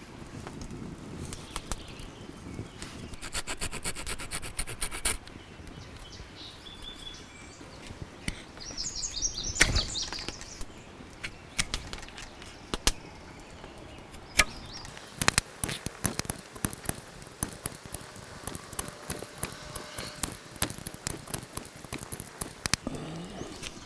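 Knife blade of a multitool carving a dry wooden arrow shaft into a split prong tip: irregular small clicks and scrapes as the blade cuts and shaves the wood, coming thickest in the second half.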